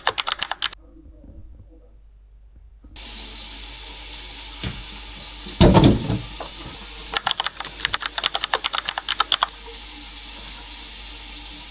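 A quick run of clicks, then a steady rush of running water that cuts in suddenly about three seconds in. A loud knock comes near the middle, and a run of quick clicks and clatters follows over the water.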